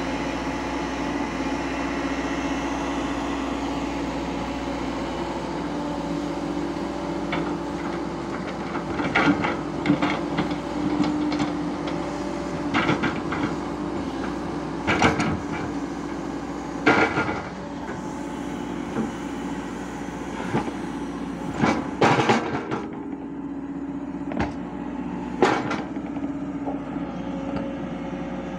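Heavy diesel engines running steadily while a Hyundai 140 excavator loads sand into a steel dump-truck body; from about nine seconds in, a series of loud thuds and clatters as bucketloads are dropped into the truck bed.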